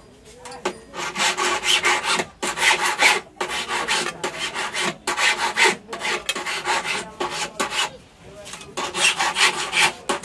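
Key-duplicating machine's cutter grinding a metal key blank in a series of rasping passes, with short breaks between them and a longer pause shortly before the end.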